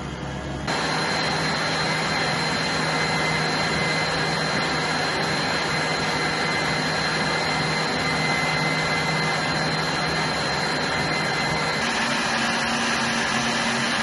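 Electric stand mixer running steadily, its wire whisk beating egg whites in a stainless steel bowl as they froth up. It steps up louder just under a second in, and its motor tone changes about twelve seconds in.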